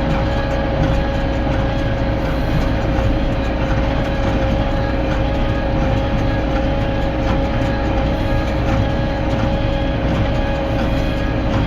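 Tractor running steadily while pulling a small square hay baler, with a constant whine over the engine.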